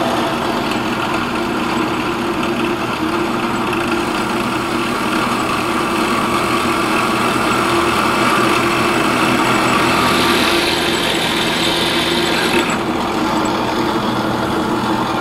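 Drill press running at high speed, its wood-boring cutter cutting through a wooden rifle stock to bore a pillar hole: a steady motor hum under the noise of the cutting. A brighter, higher hiss joins from about ten to thirteen seconds in.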